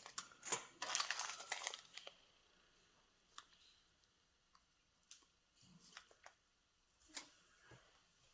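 Small plastic packets crinkling for about a second, then scattered light clicks and taps as small metal charms and packaging are handled.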